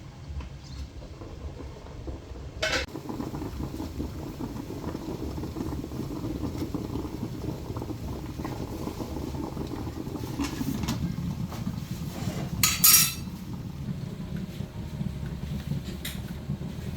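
Kitchenware being handled: a sharp clink about three seconds in, a louder clatter of pots or dishes near the middle, and a few lighter knocks, over a steady low background rumble.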